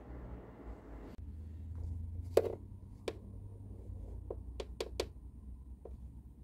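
A handful of light clicks and taps from hands working at a Janome computerised sewing machine, one sharper click about two seconds in and a quick cluster of three or four about a second later, over a faint steady high whine. For the first second there is a steady rushing hiss that cuts off abruptly.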